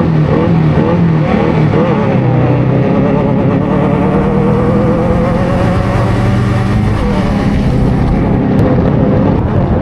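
Off-road race vehicle's engine heard from onboard, revving up and down in quick repeated surges for the first couple of seconds, then holding a steadier, slightly wavering pitch, over a constant low rumble.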